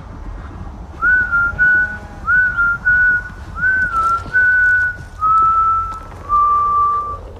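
A man whistling a slow tune: held notes, each phrase opening with an upward slide, the last two notes lower and longer, over a steady low rumble.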